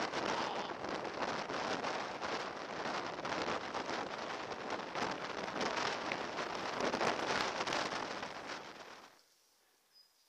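Wind buffeting and jolting rattle on the microphone of a camera mounted on a mountain bike riding a bumpy grass track: a dense crackling noise that cuts off suddenly about nine seconds in.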